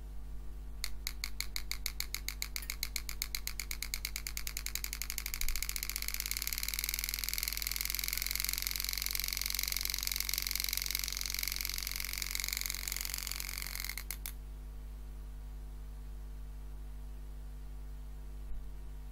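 Super EZ graver hand-engraving handpiece with a 98-degree carbide cutter striking into 304 stainless steel. It starts as a rapid train of separate strikes about a second in, which quickens into a continuous high buzz. It cuts off suddenly after about 13 seconds, over a steady electrical hum.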